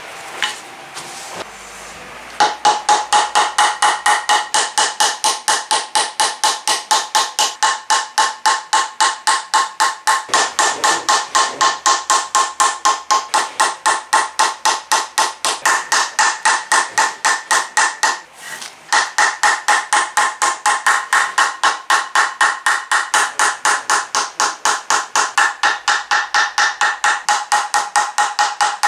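Steel Japanese carpenter's hammer (genno) striking a small softwood plug block that rests on a hardwood block, in a fast, steady run of blows, about three to four a second, each with a short metallic ring. The blows pause briefly about two-thirds of the way through, then resume at the same pace.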